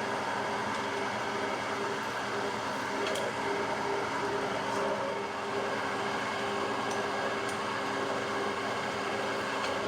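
Cincinnati milling machine running steadily, its spindle and gear train giving a constant hum with a few faint light ticks, while holes are drilled in the chuck hub.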